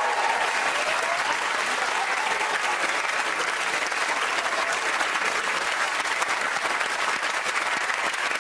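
Studio audience applauding, a steady, sustained round of clapping.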